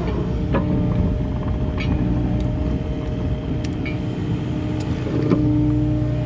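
Kubota KX080 excavator's diesel engine running steadily while digging, with a few scattered knocks and clicks from the bucket and machine.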